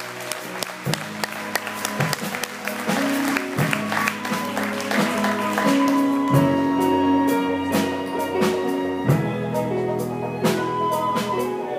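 Live church band music with guitar, held keyboard-like notes and a steady drum beat, with applause over it that thins out about halfway through.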